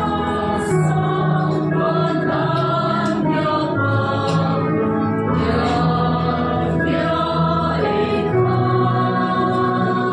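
Women's choir singing a hymn in harmony, holding chords that change every second or so, over a steady low accompaniment beneath the voices.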